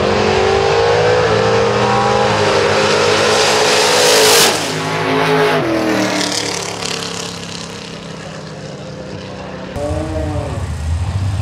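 Two gasser drag cars launching at full throttle, their engines climbing in pitch for about four seconds. Then they pass with a sudden drop in pitch and fade down the track. Near the end another gasser's engine revs up and down briefly.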